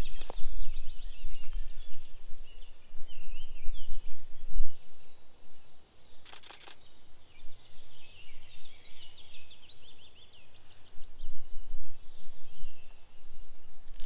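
Several songbirds calling and trilling in the morning woodland chorus, with a couple of sharp clicks about six and a half seconds in and a low rumble underneath in the first few seconds.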